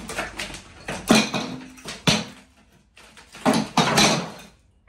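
Ceramic wall tiles being levered off with a hand tool: a series of sharp knocks, cracks and scrapes as tiles and broken pieces come away and clatter, loudest about a second in and again near the end. The tiles come away easily because damp has left the wall blown, with no adhesion behind them.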